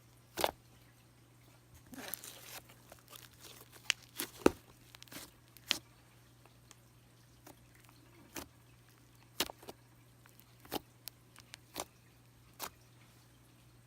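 Cream cheese slime being squished and pressed by hand, giving irregular sticky clicks and small air-bubble pops, about a dozen in all, with a short crackly patch about two seconds in.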